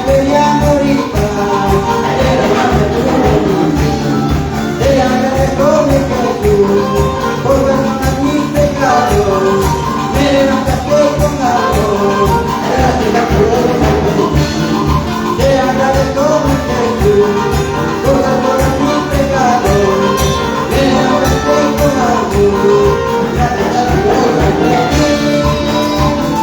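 Live Latin American-style Christian praise music with a steady beat and a melody line.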